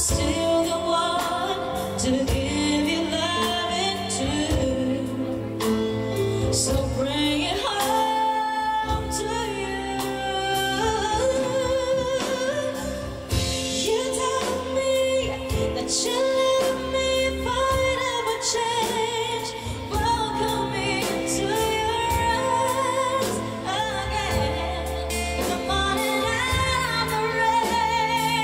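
Fan-filmed live concert recording of a woman singing a ballad with a band, her voice holding long notes with vibrato and sliding between pitches.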